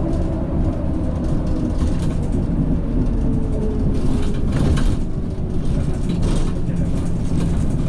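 Cabin noise inside a Van Hool A300 city bus on the move: steady engine drone and road noise, with the engine note shifting slightly a couple of seconds in and a few rattles about four seconds in.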